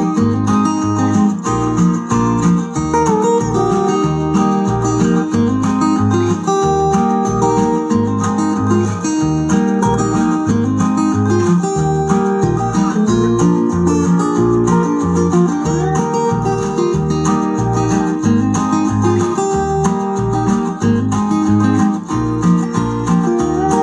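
Guitar-led music with a steady bass beat, played through a pair of two-way bookshelf speakers driven by an LM1875 gainclone amplifier running two chips per channel in parallel.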